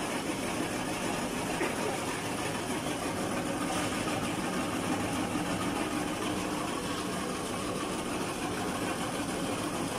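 Animal-feed pellet production line machinery running on its trial run: a steady mechanical drone.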